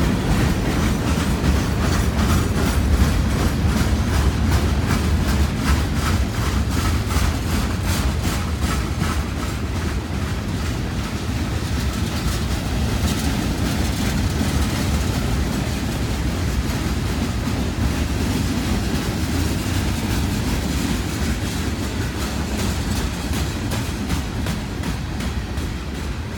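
Canadian Pacific manifest freight train rolling past: a steady heavy rumble with a rhythmic clickety-clack of wheels running over the rail.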